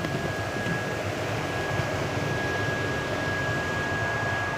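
Steady background noise, an even hiss with a low rumble, with a thin high-pitched whine over it that is strongest in the second half.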